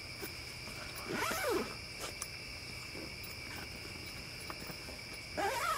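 Steady trilling of crickets. Two short sliding vocal sounds, rising and falling in pitch, come about a second in and again near the end.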